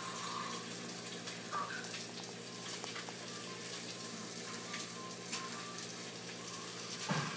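A puppy and a ferret scuffling on a tile floor: scattered light clicks of claws on tile over a steady hiss and low hum, with a short low thump near the end.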